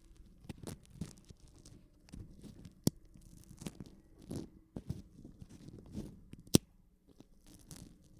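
Material being ripped apart in a run of short, irregular tears and snaps, with a sharp crack about three seconds in and a louder one near 6.5 seconds.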